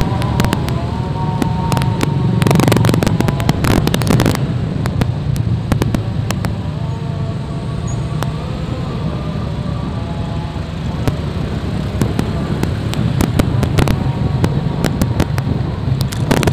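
Motorcycles running in slow, dense street traffic, a steady low engine drone. A dense burst of sharp crackling comes from about two and a half to four seconds in.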